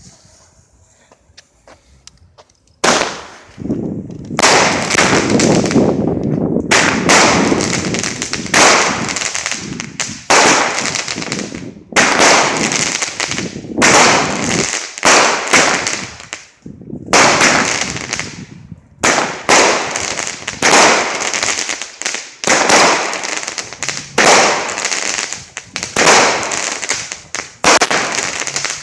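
Daffodil consumer firework going off: after about three quiet seconds, a long series of loud noisy bursts, one every second or two.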